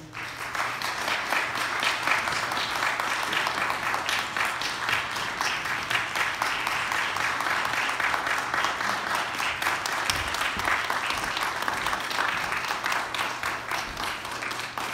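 Congregation applauding: many people clapping steadily, starting right away and easing slightly near the end.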